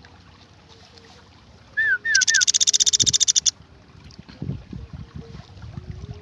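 Young Sunda pygmy woodpecker calling: three short chirps, then a loud, rapid, high rattling trill of about fourteen notes a second for about a second and a half. Low knocks follow near the end.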